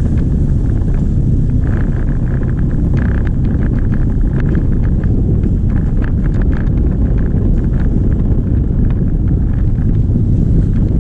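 Steady wind rumble on the microphone over the running noise of a moving vehicle, with scattered light clicks.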